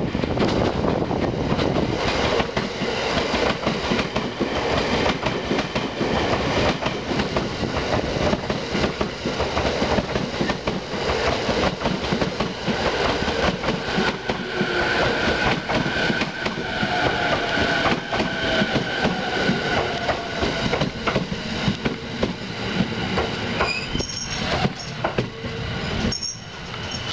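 JR East E217 series electric train pulling into a station and braking, wheels clattering over the rail joints. Thin brake squeals come in about halfway through. Near the end the train comes to a stop and the noise drops away.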